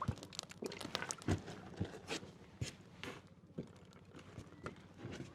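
A run of irregular small knocks, clicks and crunches, a few a second, like things being handled or stepped on.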